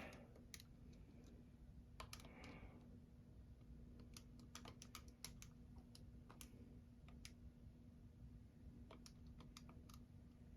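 Faint, irregular clicks of keys being pressed one at a time, as when a number is keyed in to work out a calculation, over a faint steady hum.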